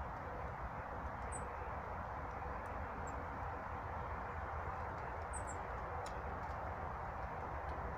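A few short, very high, thin bird calls, about a second in, around three seconds in and a quick cluster about five seconds in, over a steady rushing background noise with a low rumble.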